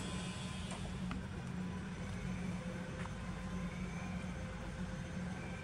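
Steady low rumble of outdoor background noise, with two faint brief high tones, one near the middle and one near the end.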